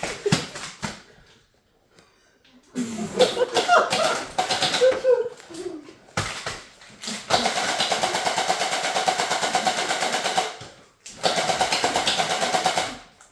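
Electric gel-ball (Orbeez) blaster firing on full auto: a fast, even buzzing rattle of its motor and gearbox, in two long bursts in the second half and shorter ones before.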